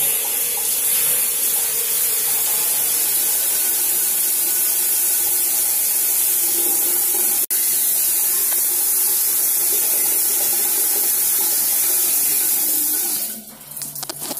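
Shower running after being switched on at a digital wall control: a steady hiss of spraying water, with a momentary dropout about halfway through, stopping about a second before the end.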